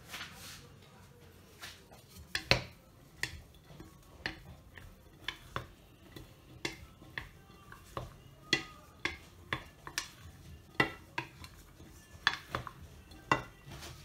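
Wooden spoon stirring cooked pasta and diced potatoes in a glass bowl, knocking against the glass in irregular sharp clicks about one or two a second.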